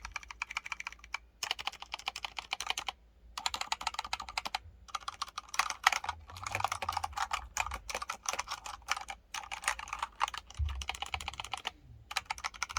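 Fast typing on a Razer Phantom Edition 65% mechanical keyboard with linear yellow switches. Dense runs of keystrokes are broken by a few short pauses.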